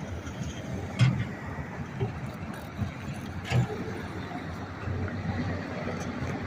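Steady low rumble of outdoor traffic and machinery, with two sharp clacks, one about a second in and another about three and a half seconds in.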